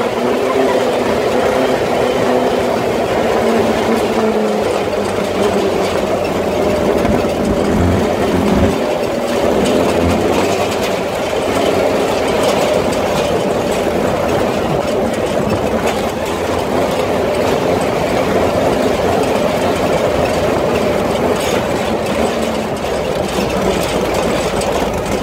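Engine of an open tube-frame off-road buggy running steadily while under way, with wind rushing over the microphone.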